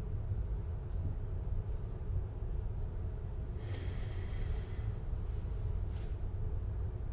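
A person's forceful, hissing breath lasting about a second, midway, over a steady low rumble, with two faint clicks about a second in and near the end.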